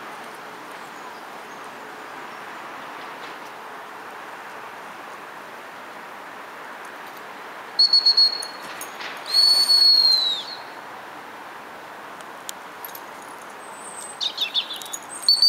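Gundog training whistle blown as commands to an Irish setter: three short pips about eight seconds in, then one long steady blast that drops in pitch as it ends. Near the end comes a quick warbling run of notes, then another blast.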